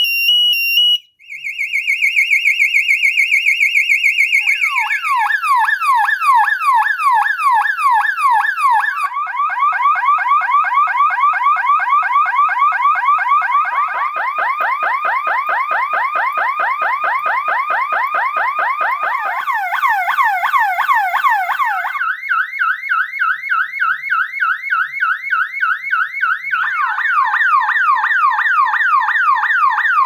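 Electronic sirens of early-to-mid-1990s burglar alarm bell boxes sounding one after another. A high two-tone warble cuts off about a second in, followed by a string of fast rising-and-falling wails that switch to a new pitch and speed every few seconds.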